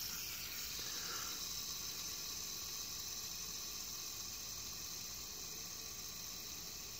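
Fidget spinner held close by the fingertips, its ball bearing spinning freely with a faint steady whirring hiss that eases off slightly as it slows.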